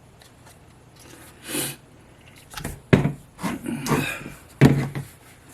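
Handling noise on a workbench: a soft rustle, then several sharp clicks and knocks of hard objects being picked up and set down, the two loudest about three and four and a half seconds in.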